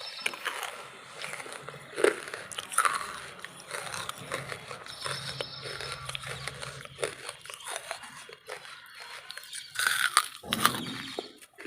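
Wood charcoal being bitten and chewed: a steady run of dry crunching and crackling, with a sharp loud bite about two seconds in and another burst of crunches near the end.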